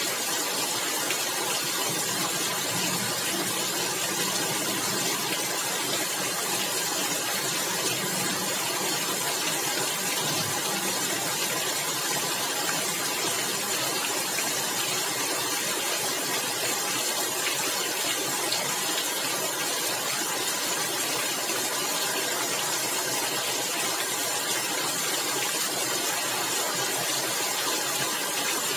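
Rain falling on a tiled roof, a steady dense hiss with no let-up.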